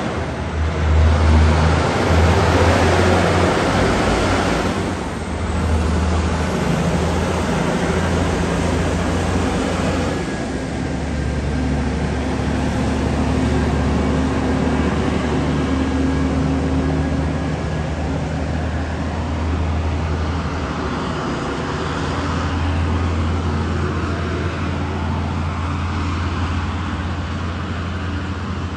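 Heavy haulage truck's diesel engine running, a steady low hum over road and traffic noise.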